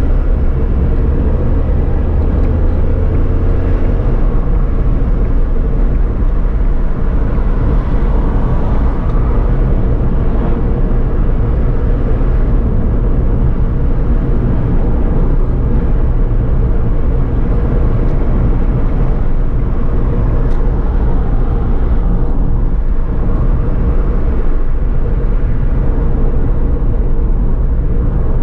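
Suzuki Alto cruising on a sealed highway, heard from inside the car: steady engine and tyre road noise. A low drone in it drops away about four seconds in.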